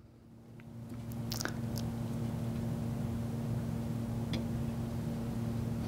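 A steady electric hum from the bowling-ball balancing device, building up over the first second and a half and then holding level, with a few light clicks from handling the device.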